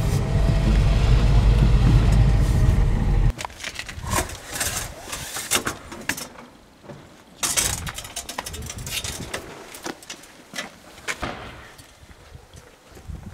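Car driving, a steady low rumble that cuts off abruptly about three seconds in. Then come scattered clicks and knocks from a car door and metal film reels being handled, and footsteps near the end.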